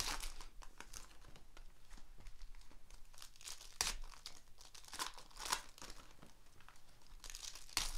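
Foil trading-card pack wrappers being torn open and crinkled by hand, in irregular crackles, the sharpest about halfway through and again near the end.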